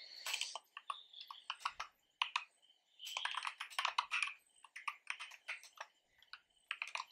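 Typing on a computer keyboard: irregular runs of key clicks, with short pauses about two seconds and six seconds in.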